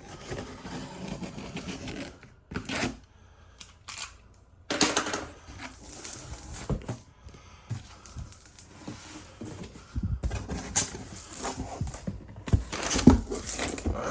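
Cardboard shipping box being opened by hand: irregular scraping, tearing and rustling of cardboard and packing material, with a few sharp knocks and louder bursts about five, ten and thirteen seconds in.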